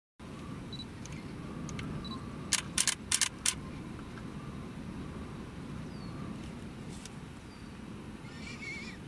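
A DSLR camera shutter firing about five times in quick succession, over steady low wind rumble, with a faint chirp near the end.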